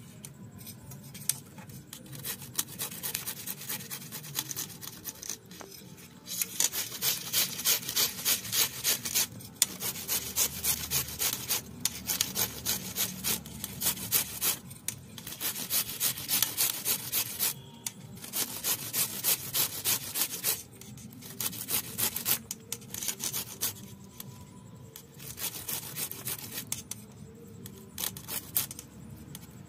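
Cauliflower being grated by hand for a paratha filling: quick, regular rasping strokes, about two to three a second, in runs broken by short pauses.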